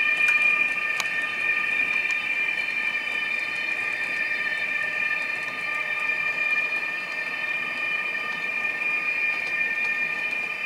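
H0-scale model of a DB class 147 TRAXX AC3 electric locomotive running with its digital sound on, giving a steady high electric whine. There is a click about a second in.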